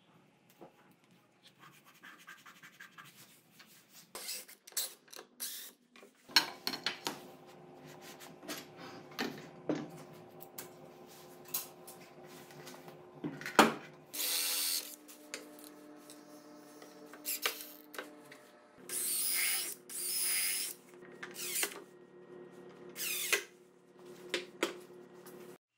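Plywood jig parts being handled and slid about on a table saw top: scattered knocks, clicks and scrapes of wood on metal, with a few short rasping bursts about halfway through and again a few seconds later.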